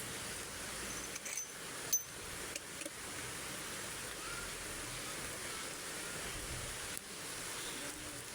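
Steady hissing background noise with a few light clicks, and one sharper tap about two seconds in.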